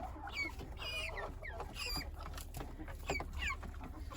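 Broiler chickens peeping: many short, high cheeps that fall in pitch, overlapping one after another.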